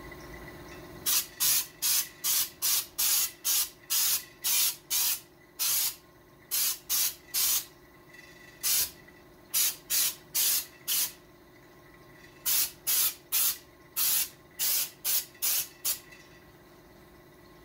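Bottle-fed paint spray gun spraying in quick short bursts of hiss, about two or three a second, with a few brief pauses, as paint goes onto a car's floor pan.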